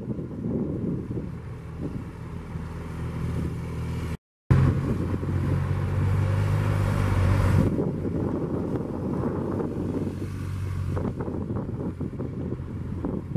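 Motorcycle engine running at low, steady revs during slow-speed turning practice, with wind buffeting the microphone. The sound drops out for a moment about four seconds in, and the engine is louder for the next three seconds or so.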